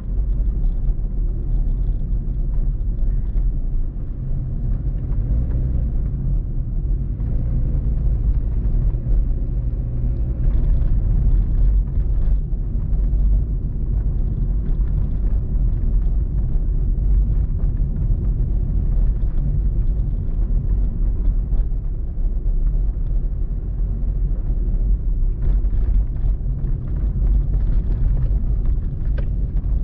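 Car driving on city streets, heard from inside the cabin: a steady low rumble of road and engine noise.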